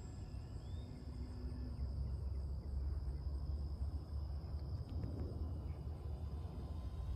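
Insects trilling steadily in one unbroken high tone, over a continuous low rumble.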